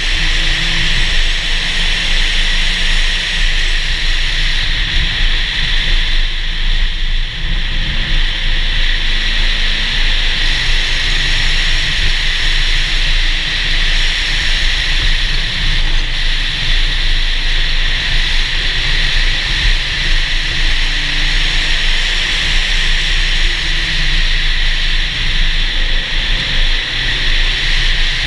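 Car driving at speed, heard from a camera mounted outside on the bonnet: steady wind and road noise over a low engine rumble.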